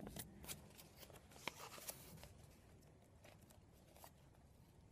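Faint, scattered rustles and soft crinkles of a sheet of origami paper being folded and creased by hand.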